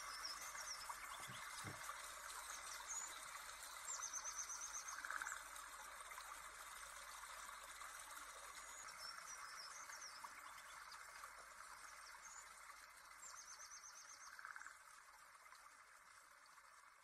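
Faint nature ambience: small birds chirping and trilling over a steady trickling-water hiss. The same run of chirps and trills comes round again about nine seconds later, as in a looped track, and it fades near the end.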